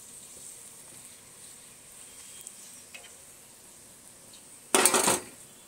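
Triangular paratha sizzling in oil on a tawa, a steady faint hiss while it is pressed with a spoon. Near the end a sudden loud half-second burst of noise cuts across it.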